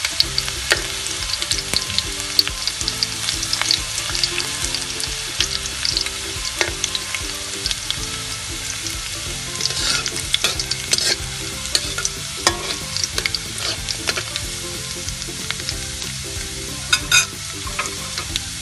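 Chopped garlic frying in hot oil in a pan: a steady sizzle while it browns, with a utensil clicking and scraping against the pan a few times as it is stirred.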